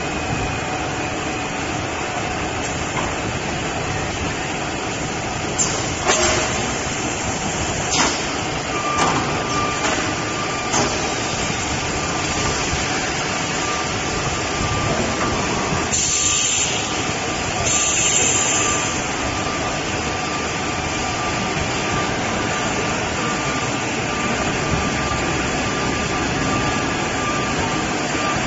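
Stretch-wrap film casting line running: a steady machine drone with a thin whine. There are a few sharp clicks between about six and eleven seconds in, and two short bursts of hiss about halfway through.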